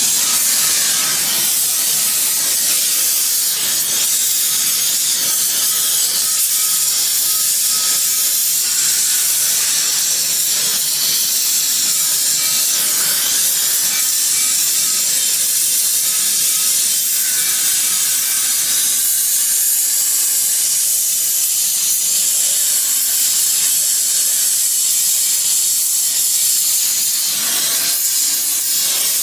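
A hand-held gas torch hissing steadily, its flame played on a brass casting being joined with a filler rod.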